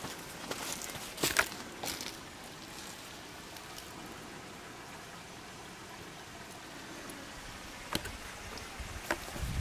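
Quiet outdoor ambience with a few sharp crackles and snaps in the first two seconds and again near the end. A low rumble of wind on the microphone comes in at the very end.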